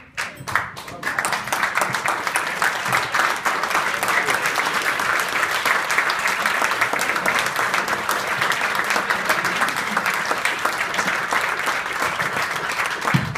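A roomful of people applauding: dense hand-clapping that swells about a second in, holds steady, and begins to thin out near the end.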